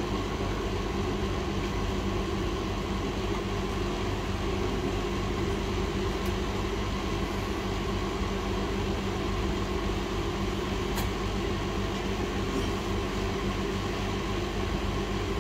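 Hot air rework station blowing steadily while an IC is desoldered from a laptop motherboard: an even rushing hum with no change in level, and two faint clicks.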